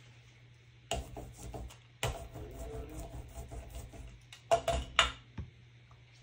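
Black acrylic paint being spread in a thin layer over a gel printing plate: two spells of rapid sticky crackling, about a second and then about two seconds long, followed by two sharp clicks near the end.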